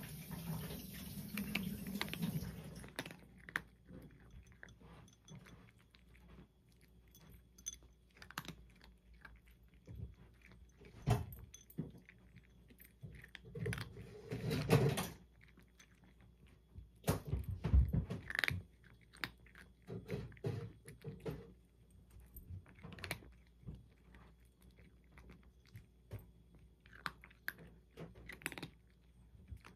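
A brown tabby cat eating from a glass bowl, chewing its food in irregular clicks, with louder bouts of crunching now and then.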